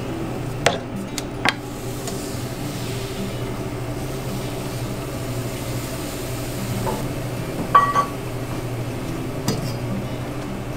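Kitchen clatter at a crepe griddle: a few sharp metal clinks of utensils, three near the start and a ringing pair about eight seconds in, over a steady low hum.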